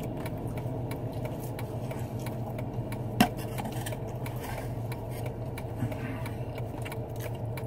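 Soft chewing and mouth clicks from someone eating a glazed donut, over a steady low hum inside a car cabin. One sharper click about three seconds in.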